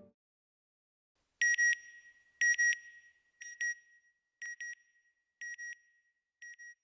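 Electronic double beeps, high and pitched like an alarm: six pairs about one second apart, each pair fainter than the one before, like an echo dying away.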